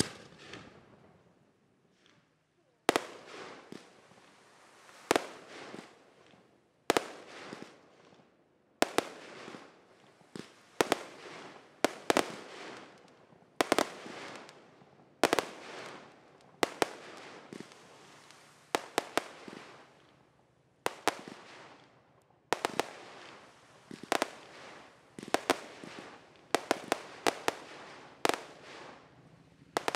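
Fireworks display: aerial shells bursting one after another, each a sharp bang with a fading tail. After a short lull near the start they come about every one to two seconds, with quicker clusters of bangs near the end.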